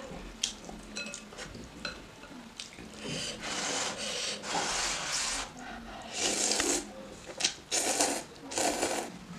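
A person slurping curry noodles off chopsticks. There are a few small clicks at first, then a string of long, noisy slurps from about three seconds in.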